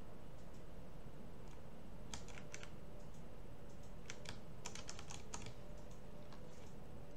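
Light clicks of computer keys: a few about two seconds in, then a quicker run of about seven a couple of seconds later, over a steady low room hum.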